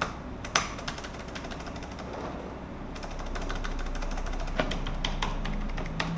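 Asus X541U laptop keyboard being typed on, a quick run of key clicks with one louder tap about half a second in, as keys are pressed over and over to test a keyboard where some keys don't register.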